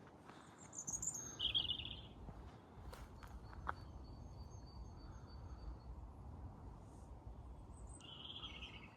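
Small birds calling outdoors: short high chirps about a second in and again near the end, with a faint run of thin repeated notes in between, over low rumbling noise at the microphone.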